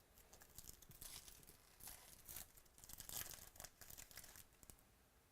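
Faint rustling and crinkling of trading cards and a foil pack wrapper being handled, in a run of short scratchy bursts from about one second in until nearly the end.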